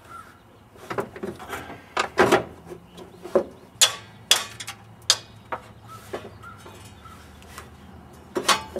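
Irregular sharp clanks and knocks of hand tools and loose parts against the fan assembly at the front of a truck engine, as a bolt is worked loose by hand. There are about a dozen strikes at uneven spacing, the loudest about two and four seconds in and one more near the end.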